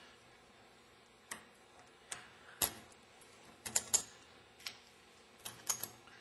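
Steel pick scraping and clicking at corrosion packed in and around a socket-head cap screw on a Meyer E-60 snow plow pump's motor housing. Scattered sharp metal clicks and scrapes, a second or so apart at first, then in quicker clusters near the end.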